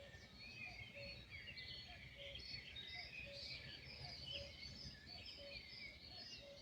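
Chorus of several small songbirds chirping and trilling over each other, with a short low note repeating about once a second beneath them and a faint low rumble.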